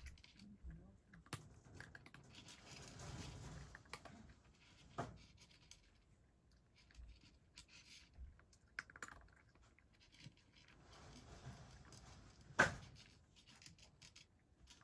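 A cat eating from a bowl: faint, irregular crunching and clicking as it chews dry food, with one sharper click near the end.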